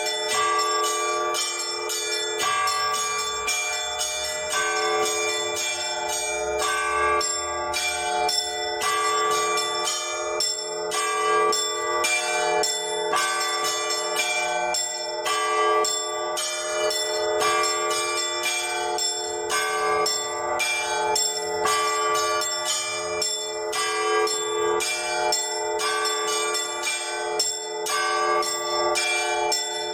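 A set of Orthodox church bells rung by a single bell ringer: quick strikes on several bells of different pitches, in a pattern that repeats about every two seconds, the tones overlapping and ringing on.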